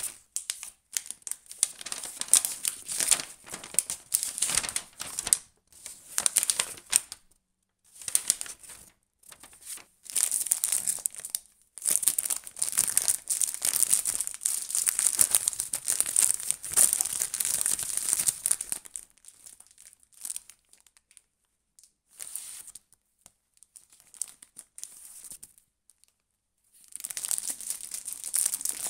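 Clear plastic bag around a stack of paper instruction manuals crinkling as it is handled, along with rustling of folded paper leaflets, in irregular bursts. It goes mostly quiet for several seconds in the last third, then the crinkling starts again near the end.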